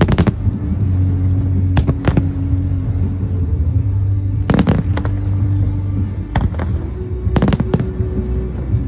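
Fireworks shells bursting in sharp bangs, about six clusters, several in quick pairs, over a music soundtrack with long held low notes.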